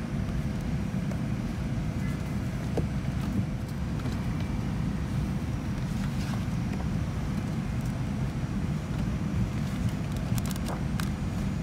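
Steady low cabin rumble inside a Boeing 787-9 airliner, with a few light paper rustles as magazine pages are flipped near the end.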